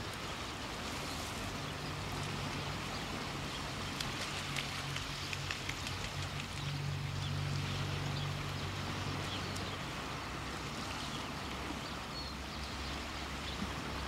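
A low engine hum drones steadily over an outdoor hiss. It is strongest about seven to nine seconds in, then fades. A few light clicks come about four to six seconds in.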